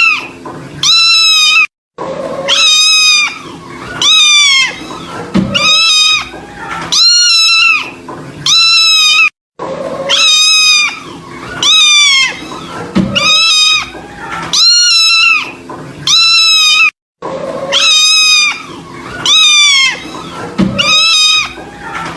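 Kitten meowing over and over, loud high-pitched cries about one a second, each one falling in pitch at its end. The sound cuts out completely for a moment three times.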